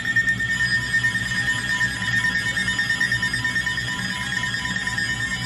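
Electronic alert tones: a steady high tone with a lower tone beeping on and off beneath it, cutting into the weather radio's warning broadcast.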